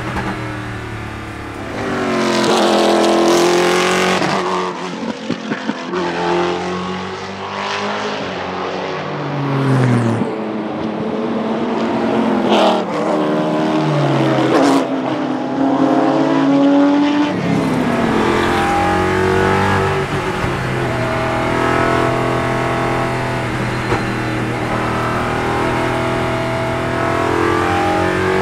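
Ford GT GT1 race car's 5.3-litre V8 racing engine at full load, heard first from inside the cockpit, revving up and down through the gears. Then race cars pass close by with the engine pitch falling as they go, and later the onboard V8 runs again at high, steady revs.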